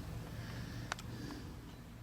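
Mini air compressor running faintly as a steady low hum, fading out, with one sharp click just under a second in.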